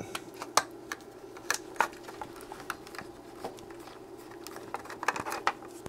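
Scattered light clicks and taps of fingers handling the plastic case and circuit board of a cheap wireless headphone transmitter, over a faint steady hum.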